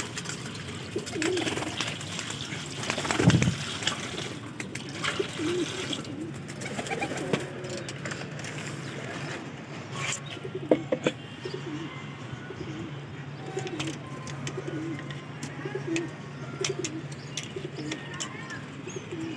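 Domestic pigeons cooing over and over. In the first few seconds water splashes as it is poured from a plastic bucket into a wide steel tray, loudest a little over three seconds in, and a few sharp knocks come near the middle.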